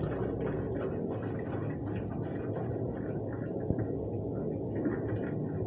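Hot water poured from an aluminium kettle into a pot of ogi while a wooden spatula stirs it, a steady noisy pour with a low hum underneath. The boiling water is setting the corn paste into pap.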